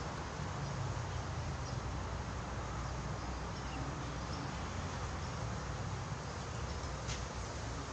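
Steady outdoor background noise by a fishing pond: a low rumble with a few faint high chirps, and one brief click about seven seconds in.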